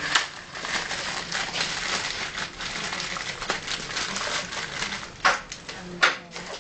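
Metal clicking and clinking of a tool working the clamps of a pelvic external fixator frame as it is taken apart, with two sharper clicks about five and six seconds in.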